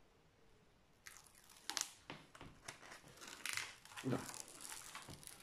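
Protective release paper being peeled back off the adhesive canvas of a diamond painting kit, crinkling and rustling in irregular crackles that start about a second in.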